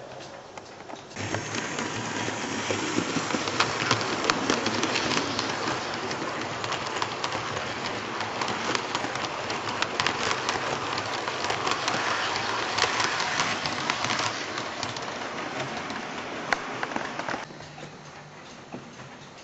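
Hornby 00 gauge model train, a Battle of Britain class locomotive with six coaches, running on the layout's track with a dense rattling clatter of wheels over the rails. The clatter gets louder suddenly about a second in and drops back quieter shortly before the end.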